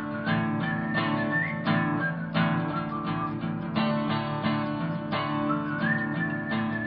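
Acoustic guitar strummed in a steady country rhythm, with a whistled melody over it that slides up into long held notes.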